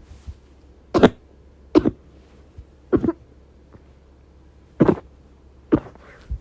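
A person coughing from bronchitis: five hard single coughs at uneven gaps of about one to two seconds, with a few fainter coughs between.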